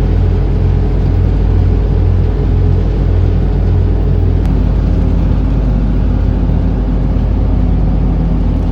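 Boat engine running steadily under way, a loud, even rumble mixed with rushing noise.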